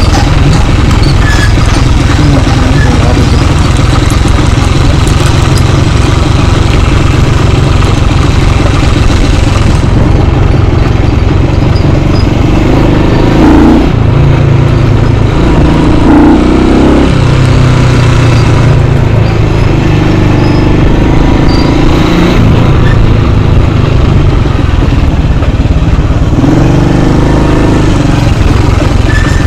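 Trail motorcycle engine running under way, heard from on the bike. Its pitch rises and falls with the throttle around the middle and again near the end.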